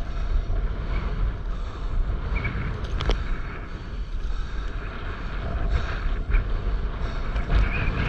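Wind buffeting the camera's microphone over the rush of breaking whitewater as a stand-up paddleboard rides a wave, with a few sharp clicks along the way.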